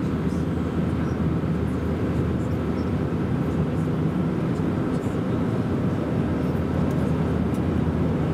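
Steady cabin noise inside an Airbus A320-232 in flight, from its IAE V2500 engines and the airflow, heard from a window seat. It is an even noise with a few steady low hums and no change in level.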